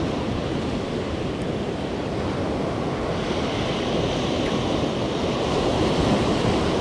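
Ocean surf breaking and washing up a sandy beach, a steady rushing wash of waves.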